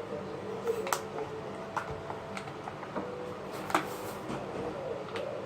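Scattered light clicks and taps, a handful of separate knocks a second or so apart, over a faint steady room hum.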